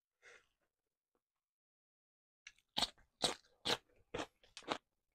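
Raw cucumber being chewed close to the microphone: a run of about seven loud, crisp crunches, about two a second, starting about halfway in.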